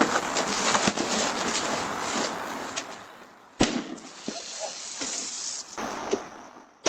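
An exploding prank package box going off: a sudden loud spraying hiss with crackling that fades over about three seconds, then a sharp bang, two shorter hissing bursts and another sharp crack at the end.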